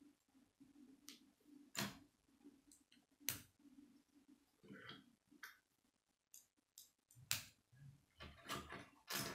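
Plastic K'nex rods and connectors being snapped together by hand: several sharp, separate clicks spread across a few seconds, with fainter handling rattles between them.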